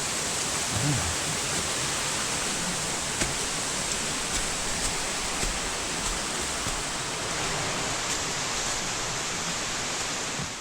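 Steady rush of a mountain creek's tumbling water, an even, unbroken wash of noise.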